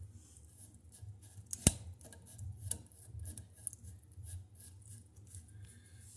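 Light scraping and rubbing handling noises with scattered small clicks, and one sharp click a little under two seconds in that is the loudest sound.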